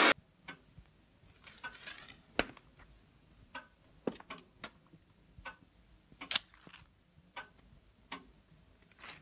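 A clock ticking in a quiet room: faint, sharp clicks about once a second, slightly uneven, with one louder click about six seconds in.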